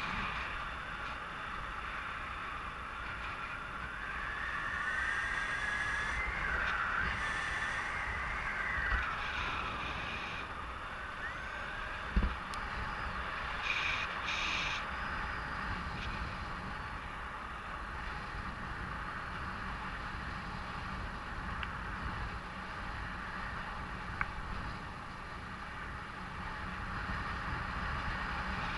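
Steady wind rushing over the microphone, with a low rumble. There are a few brief higher-pitched tones and a single sharp knock about twelve seconds in.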